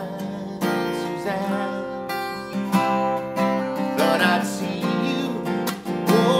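Steel-string acoustic guitar played solo, chords strummed every one to two seconds and left ringing between strokes.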